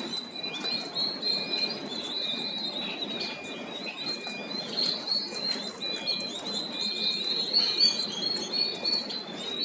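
A crowd of three-day-old turkey poults peeping continuously, many high-pitched cheeps overlapping. A faint short tone repeats at an even pace beneath them.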